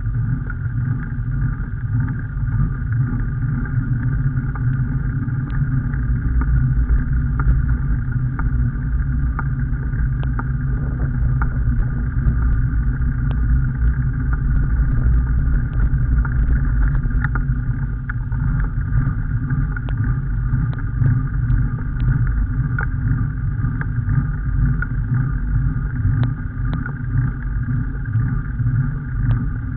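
Motor vehicle driving along a narrow country road: a steady low engine and road rumble with faint scattered ticks.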